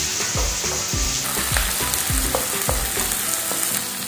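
Chopped onions sizzling in hot oil in a nonstick kadai as a spatula stirs them, the strokes scraping the pan about three times a second and stopping near the end while the sizzle goes on.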